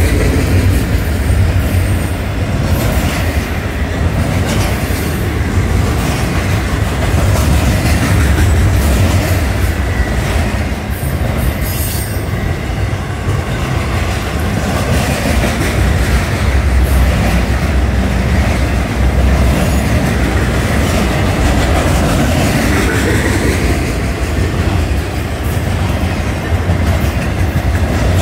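Florida East Coast Railway intermodal freight cars rolling past close by: a loud, steady rumble and clatter of steel wheels on the rails.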